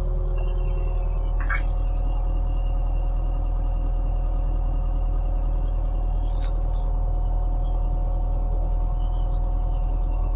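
Excavator's diesel engine running steadily, heard from inside the operator's cabin as a low, even drone, with a few brief hisses and clicks.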